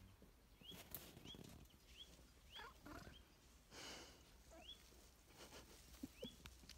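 Near silence, with a bird faintly repeating a short rising chirp about every half second and a brief rustle about four seconds in.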